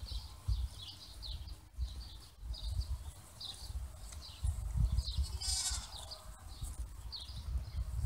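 A sheep bleats once, a short high call about five seconds in, over repeated high bird chirps and a low rumble.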